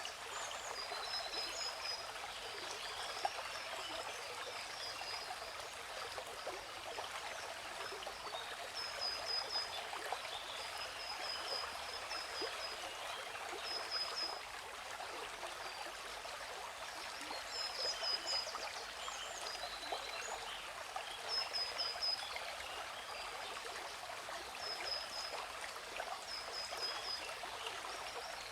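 Waterfall's rushing water, a steady hiss, with a bird giving short high chirps every few seconds over it.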